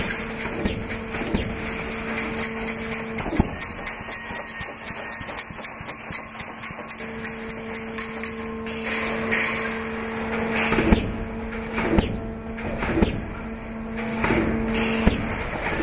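Schlatter MG700 fence-mesh welding machine running: repeated metallic knocks and clanks from the welding and mesh-handling cycle, more of them in the second half, over a steady machine hum.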